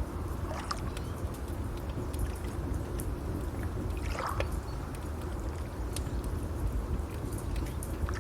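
Steady low rush of water or waves, with scattered sharp crackles and pops from a wood fire.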